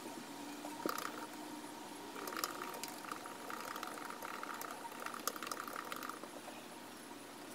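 Typing on a MacBook laptop keyboard: a quick, irregular run of key clicks from about two seconds in until about six seconds, with a short burst near the one-second mark, over a faint steady hum.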